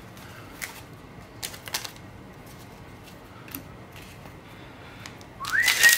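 Magic trading cards being handled and set down on piles, a few light taps. Near the end a loud crinkling rustle of a foil booster-pack wrapper being torn open starts, with a high squeaky tone that rises and then holds.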